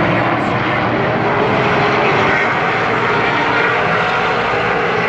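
A field of super late model stock cars with V8 engines running together around a paved short-track oval, making steady, loud, unbroken engine noise.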